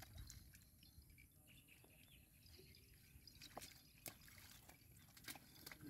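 Near silence: a few faint drips and small splashes of shallow muddy water, about three light ticks in the second half, as fish are grabbed by hand.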